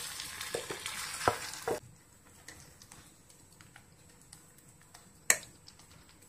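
Thick papaya-cake batter scraped out of a bowl into a nonstick frying pan, with a few knocks of the bowl and spoon against the pan, for about two seconds. Then a wooden spatula taps and spreads the batter flat, faint light ticks with one sharp knock about five seconds in.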